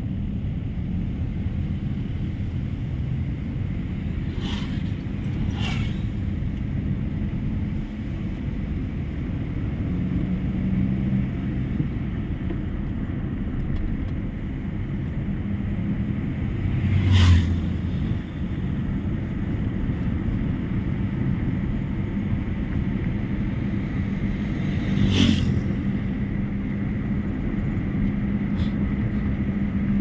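Car driving along a road, heard from inside: a steady low rumble of engine and road noise, with a few short louder rushes, the loudest about 17 seconds in and another about 25 seconds in.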